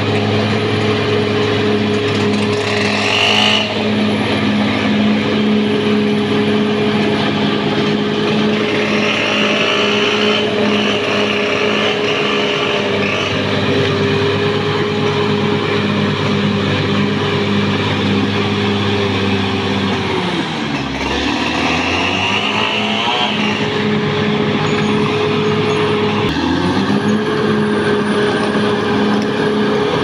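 Caterpillar D6R XL crawler bulldozer's diesel engine running steadily under load as it pushes soil and brush, with brief higher hissing now and then. About two-thirds of the way through, the engine pitch sags and comes back up, then dips briefly once more a few seconds later.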